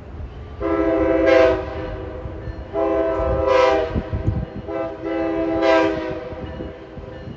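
Locomotive air horn sounding three long blasts, each about one and a half seconds, with the low rumble of the train running underneath.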